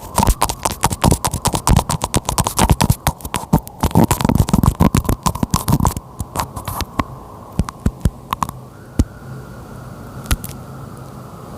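Close rubbing and scraping right on the microphone as the camera lens is wiped clean. Dense scratchy rubs and knocks for about six seconds, then only scattered clicks over a faint steady hiss.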